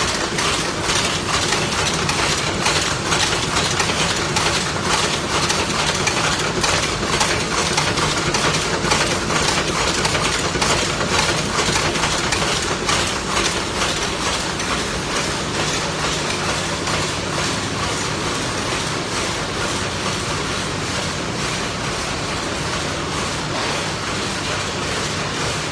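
Screw-making machines running together: a loud, steady mechanical din with a rapid, even clatter.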